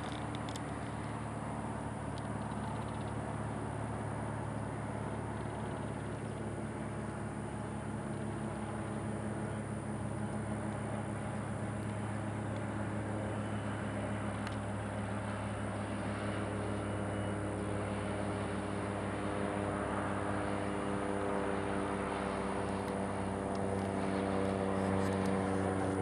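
A motor engine running steadily, its pitch and level creeping up slightly toward the end.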